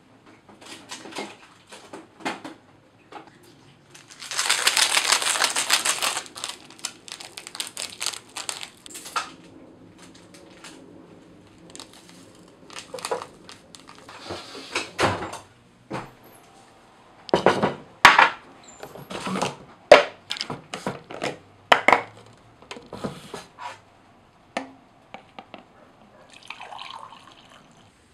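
Kitchen handling sounds while a Milo-and-milk drink is made in a plastic cup: a rush of pouring lasting about two seconds near the start, then a long run of sharp knocks and clinks.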